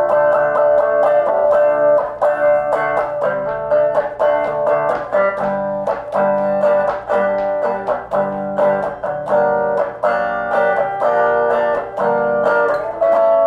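Electric guitar playing an instrumental passage of quickly picked notes and chords in a steady rhythm.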